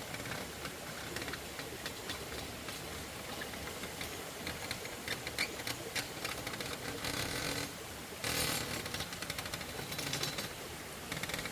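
A small engine-driven machine running steadily with a fast rattling texture, getting louder and hissier for about a second around eight seconds in.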